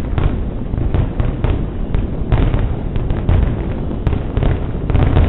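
Fireworks display: a rapid, irregular series of bangs from volleys of aerial shells and comets, several to the second, over a steady low rumble.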